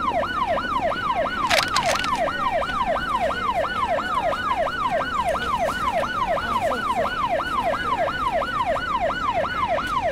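Emergency-vehicle siren in a fast yelp, its pitch sweeping up and down about three times a second, steady throughout.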